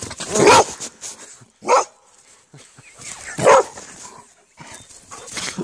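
Border collie barking in play, four short barks a second or two apart.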